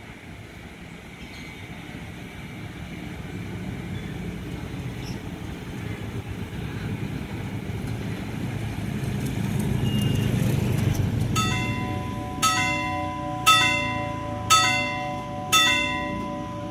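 Low rumble that grows louder over the first ten seconds. Then a railway level-crossing alarm starts: a bell strikes five times about a second apart, ringing out, over a steady alarm tone.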